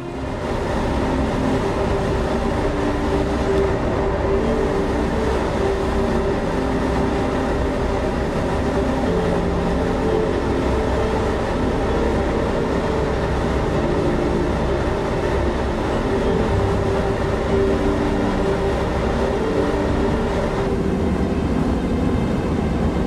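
Steady rumble of a large ferry underway, its engines running and the wake churning, heard from the open stern deck.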